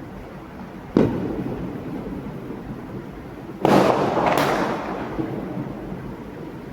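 Diwali fireworks going off: a single sharp bang about a second in that fades away, then a louder double burst with crackling a few seconds later, over a steady distant rumble of more fireworks.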